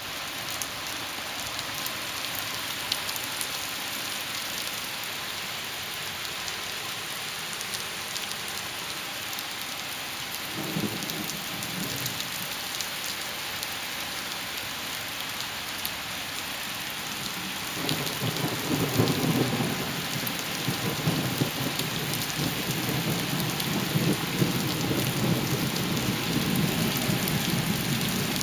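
Thunderstorm: steady heavy rain falling, with thunder rumbling. A short rumble comes about ten seconds in, and a louder, longer one starts about two-thirds of the way through and keeps going.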